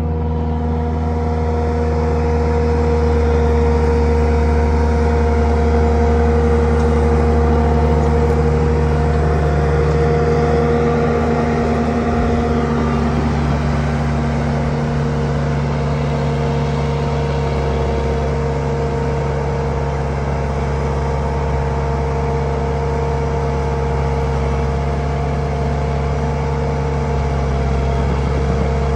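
Heavy-equipment diesel engine running steadily at a constant speed: an even, low engine hum whose pitch barely changes, shifting slightly about halfway through.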